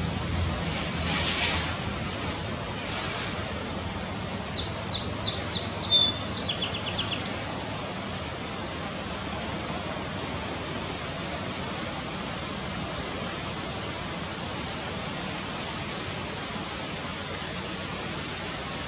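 A bird calling a quick run of about ten high chirps about five seconds in, lasting a few seconds, over a steady outdoor hiss. A low hum fades out in the first couple of seconds.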